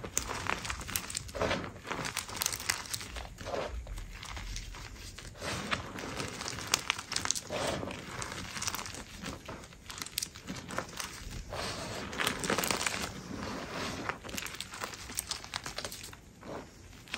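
Hands squeezing and crushing powdered gym chalk, an irregular run of soft crunches and crackles as the chalk clumps squash and crumble between the fingers.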